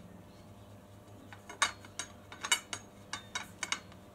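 Metal square box tubing being jiggled inside a Suzuki DR650 fork tube to seat it on the damper rod, giving a run of light, irregular metallic clinks and ticks that start about a second and a half in.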